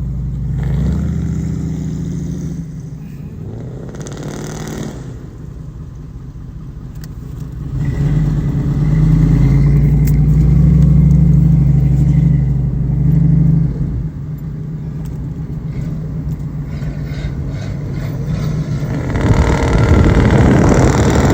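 Car engine running and revving, swelling louder for several seconds in the middle, easing off, then picking up again near the end.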